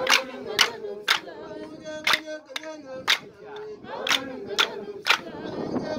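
A group of people singing together, with sharp handclaps keeping a beat about twice a second.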